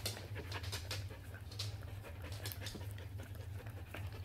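Dog panting close to the microphone in quick, irregular breaths, over a steady low hum.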